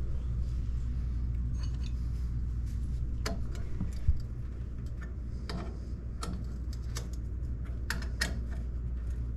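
Scattered light metallic clicks and clinks of hand tools and suspension parts being handled at a pickup truck's front upper control arm and ball joint, over a steady low hum. A duller knock about four seconds in.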